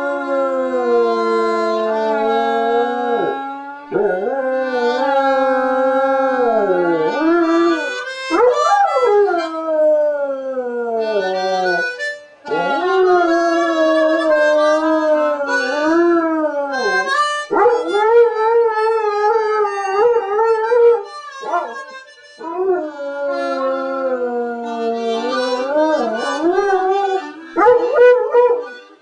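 Harmonica playing with a dog howling along, the dog's wavering howls sliding up and down in pitch over the harmonica's held chords, with a couple of short breaks.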